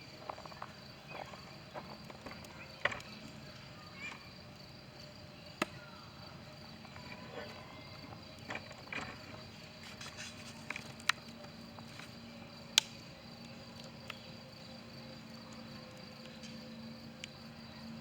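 Steady chirring of insects, crickets or similar, with scattered sharp clicks and knocks, the sharpest about three, five and a half, eleven and thirteen seconds in.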